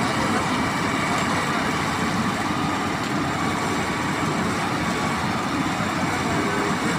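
Heavy machinery running steadily: a loud, even engine-like noise with no breaks or changes.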